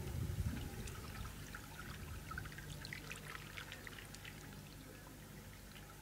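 Small waves lapping against a wooden jetty and moored boats at the water's edge, a scatter of little splashes and trickles, over a low rumble that is loudest in the first half second.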